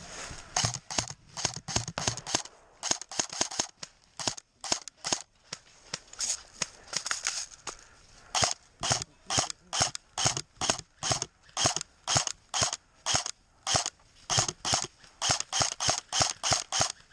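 Airsoft gun firing a long string of quick single shots, sharp snapping pops. They come in uneven clusters at first, then from about eight seconds in at a steady three or so a second.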